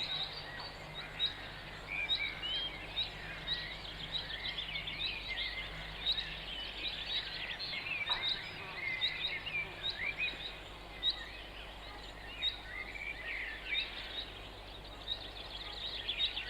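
Birds chirping and calling: many short high chirps and trills throughout, over a faint steady low hum.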